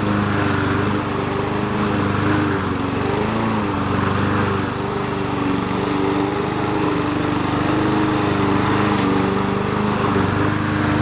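Small four-stroke push lawn mower engine running steadily under load as the mower is pushed through the grass, its pitch wavering slightly.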